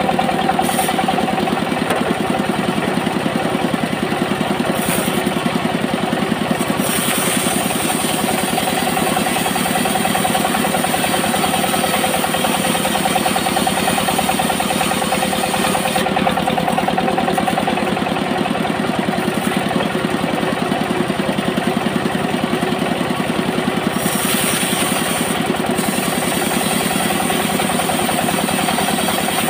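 Band sawmill running steadily, a continuous machine drone with a fast even pulse, as its blade rips a length of coconut wood; a high hiss comes and goes above the drone.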